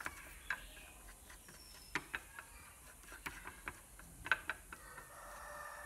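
Metal mesh sieve being shaken to sift cornstarch, giving light, irregular clicks and taps.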